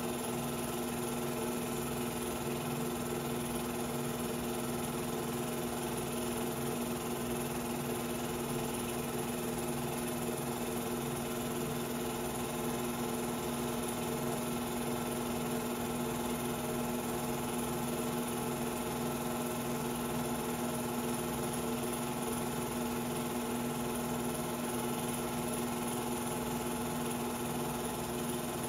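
Steady hum and whir of a film projector running, with no change in pitch or level.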